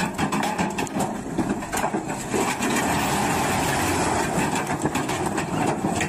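Dump truck's engine running while a load of rocks slides off its raised tipper bed with a continuous clatter of stone.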